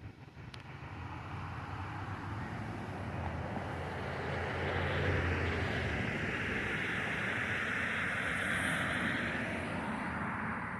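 A vehicle passing by: a rushing noise that builds over several seconds, holds, and starts to fade near the end.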